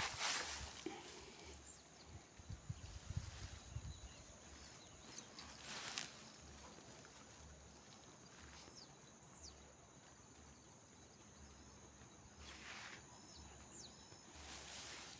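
Quiet outdoor ambience with a few brief rustling or brushing noises and faint, short, high chirps.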